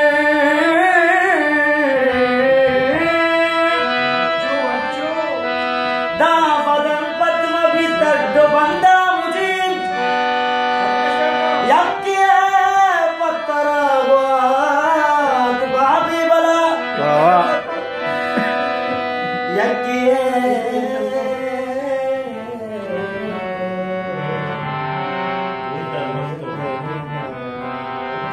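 Music: a melody line that slides and bends between held notes over an accompaniment.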